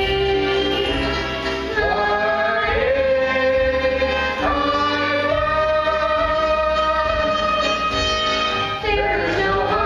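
Young cast members singing a stage-musical number over instrumental accompaniment, holding long notes that change pitch every second or two.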